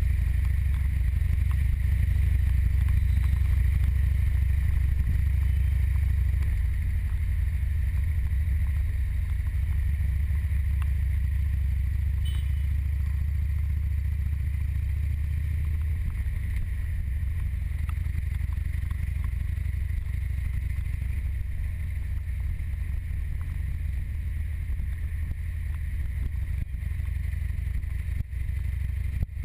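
Motorcycle running through city traffic, heard from the rider's seat as a steady deep rumble that lessens about halfway through.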